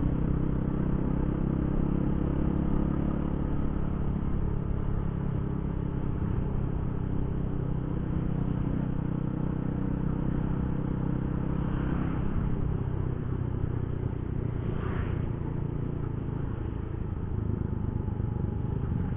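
Yamaha Jupiter Z1 motorcycle's single-cylinder four-stroke engine running steadily while riding along, over a rush of road noise.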